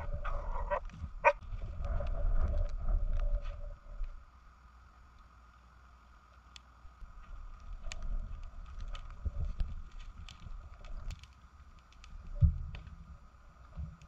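Dogs whining and moving about near the start, then a quieter stretch with scattered light clicks and one dull thump near the end.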